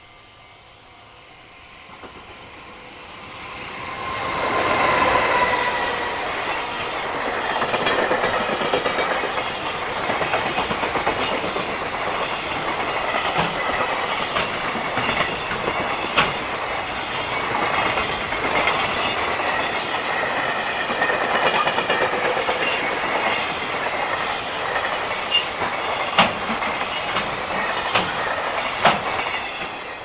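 JR Freight container train passing at speed: it builds up over the first few seconds, is loudest about five seconds in as the locomotive goes by, then the long line of container wagons runs past with a steady clickety-clack and sharp wheel clicks over the rail joints, and it falls away right at the end.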